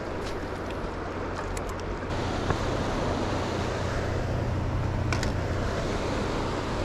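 Steady rush of water from a hydroelectric dam's outflow, with a low hum beneath it, getting louder about two seconds in. A couple of faint clicks.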